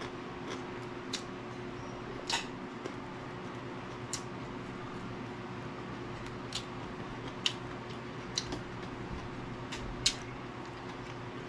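Close-up mouth sounds of chewing raw green vegetables: sharp crunches and smacks coming irregularly, about seven in all, the loudest near the end. A steady low hum runs underneath.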